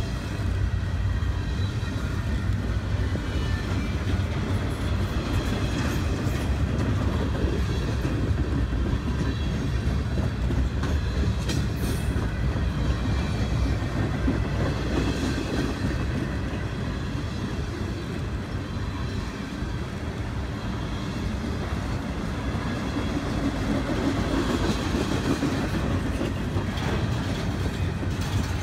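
Freight train of empty intermodal well cars rolling past, a steady rumble of steel wheels on the rails.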